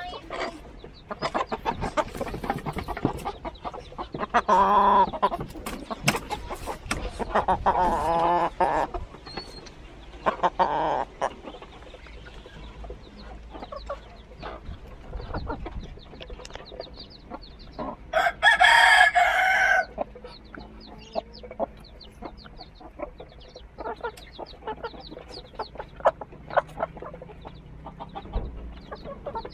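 Chickens clucking, with several drawn-out calls in the first third and one loud crow of about two seconds roughly two-thirds of the way in.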